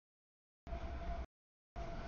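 CSX double-stack intermodal freight train rolling past: a steady low rumble with a steady mid-pitched whine on top. It is heard only in two short snatches of about half a second each, with dead silence before and between them as the audio drops out.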